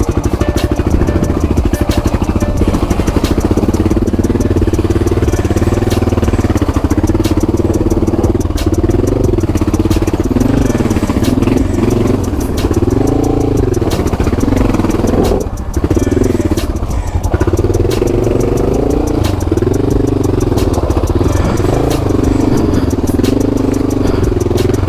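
Honda XR650 single-cylinder four-stroke engine pulling a dual-sport motorcycle over rough ground, its revs rising and falling again and again as the throttle is worked, with a brief drop about 15 seconds in.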